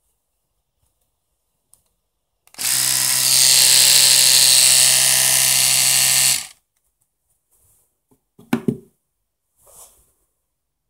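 Round-headed electric toothbrush switched on and running in the air, buzzing steadily for about four seconds before it is switched off. A couple of short clicks follow about two seconds later.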